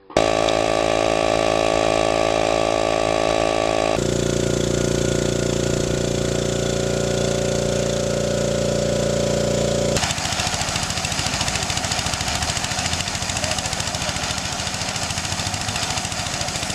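Small twin-tank air compressor's single-cylinder pump running with a steady pitched hum, the tone shifting abruptly about four seconds in. About ten seconds in it gives way to an engine-driven three-cylinder compressor running while a pneumatic jackhammer hammers rapidly.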